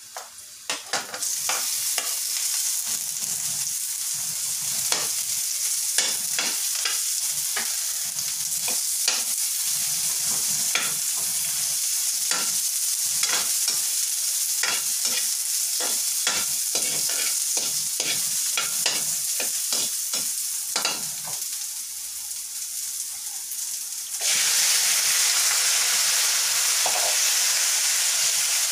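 Chopped garlic and onion sizzling in hot oil in a metal wok, with many short clicks and scrapes of the stirring utensil against the pan. About 24 seconds in, raw chicken pieces go in and the sizzle turns suddenly louder and fuller.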